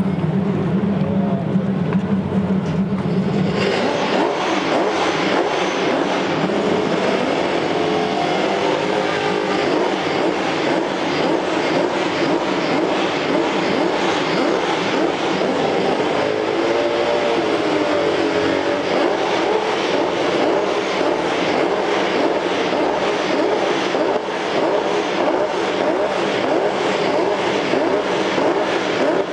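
The Honda RA300's 3.0-litre naturally aspirated V12 is started: a steady low hum from the external starter, then about three and a half seconds in the engine fires and keeps running loudly with a fast, even beat. Its revs rise and fall a couple of times.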